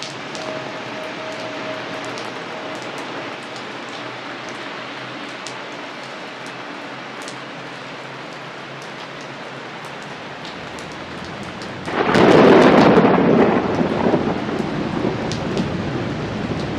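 Steady rain with scattered drop ticks, then about twelve seconds in a loud clap of thunder that rumbles and fades over a few seconds.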